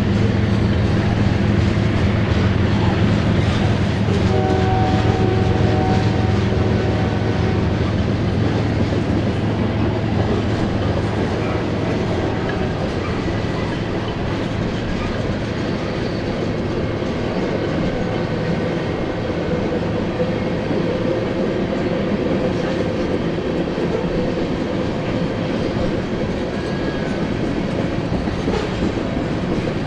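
Freight cars of a mixed freight train, tank cars and covered hoppers, rolling past on steel wheels with a steady rumble on the rails; the lowest part of the rumble eases after about ten seconds.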